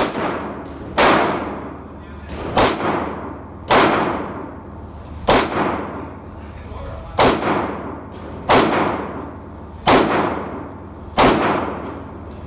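Nine single shots from a Smith & Wesson SD9VE 9mm pistol, fired at an uneven pace one to two seconds apart. Each shot rings on in a long echo off the walls of an indoor range.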